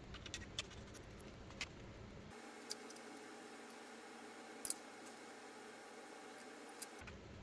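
Scattered light clicks and taps of a small screwdriver and screws being handled while fastening a graphics card's water block and backplate, the sharpest a double click about four and a half seconds in. A faint steady hum underneath.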